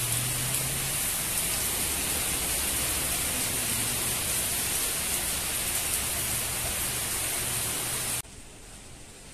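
Steady rain falling, a dense even hiss that cuts off abruptly about eight seconds in, leaving a much quieter background.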